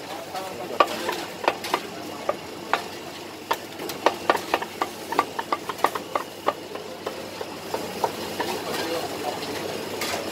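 Chinese cleaver chopping cooked chicken on a thick round wooden chopping block: a series of sharp knocks, spaced out at first, then a quick run of chops through the middle, thinning out near the end.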